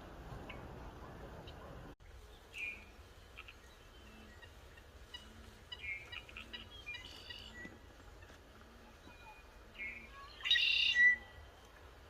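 Elk calls: scattered high squeaky chirps and mews, the loudest and longest near the end. A faint low hum pulses steadily underneath.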